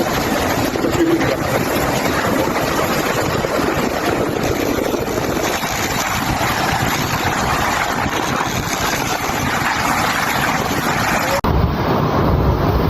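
Hurricane wind and rough water: a steady, loud rushing noise. About eleven seconds in it cuts abruptly to heavy wind buffeting the microphone.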